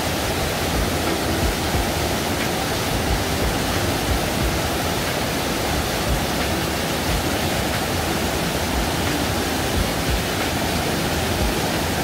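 Mountain stream pouring over boulders in a small white-water cascade into a rock pool: a steady, even rush of water.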